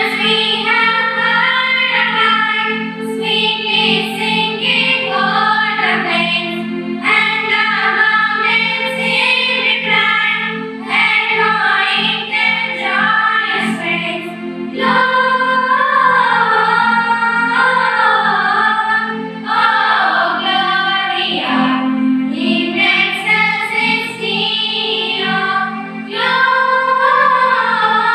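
A group of girls singing a song together into microphones, phrase by phrase with short breaks for breath, over a steady held keyboard chord.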